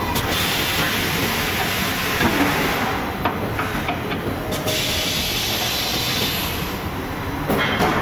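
Steel pipe production line running with a steady hissing, clattering mechanical din. A few sharp metallic clanks of steel tubes sound near the middle and again near the end.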